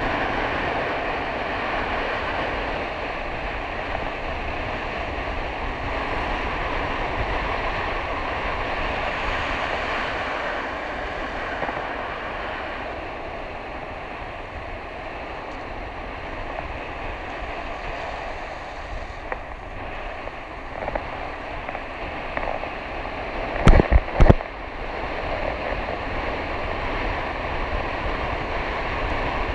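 Steady rush of wind on the microphone mixed with inline skate wheels rolling on wet asphalt during a fast downhill run. A few loud knocks in quick succession near the end.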